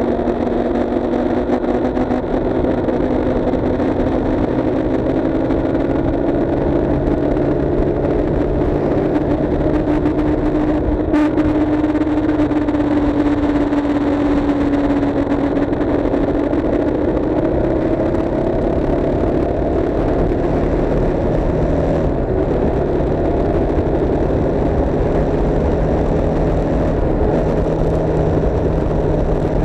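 Road vehicle's engine running steadily on the move, its note drifting slowly up and down with road noise underneath. There is one brief knock about eleven seconds in.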